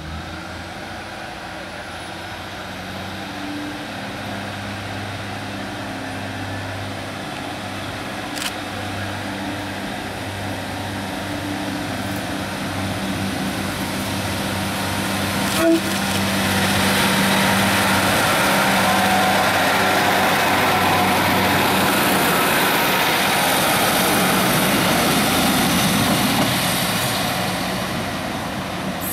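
Two coupled Class 153 diesel railcars pulling away and passing, their Cummins diesel engines running with a steady low drone. The sound grows louder, stays at its loudest for several seconds as the railcars go by, and fades near the end. Two sharp clicks come about 8 and 16 seconds in.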